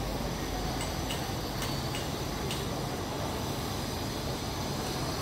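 Steady outdoor background noise with a low rumble, and a few faint, short high-pitched ticks in the first half.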